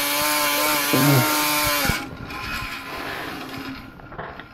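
Fan trainer's electric fan running loud and steady with a humming tone. The tone wavers about a second in as the weight comes off the arm, then drops away abruptly about two seconds in to a quiet whir. This is the PID controller cutting the fan's thrust once the disturbance is removed, to hold the arm at 45 degrees.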